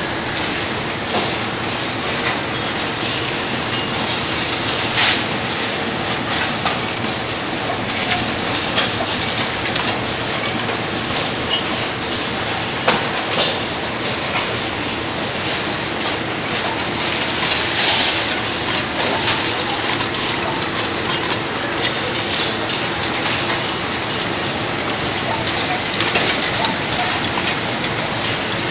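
Automatic glass-vial inspection machine running: a steady, dense clatter of many small clicks as glass vials rattle through its chain-driven conveyors and star wheels.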